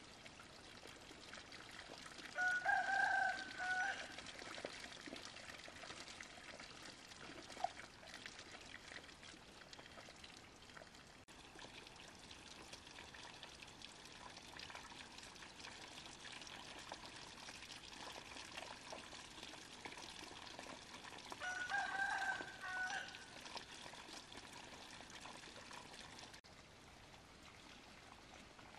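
A rooster crows twice, about two seconds in and again about twenty-two seconds in, over the steady sound of running water.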